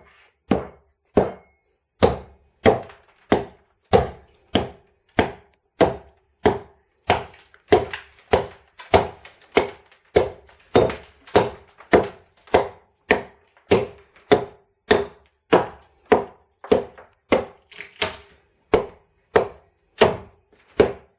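Steady hammering on wooden floor boards, about one and a half blows a second, each blow with a short ring.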